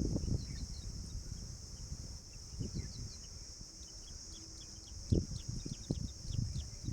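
Steady high insect chorus, the kind crickets or cicadas make, with many short, faint bird chirps over it and a few dull low thumps.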